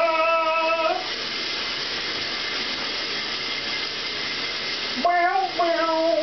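Shower spray hissing steadily in a small tiled bathroom for about four seconds, between a long held sung note that ends about a second in and more loud held sung notes starting near the end.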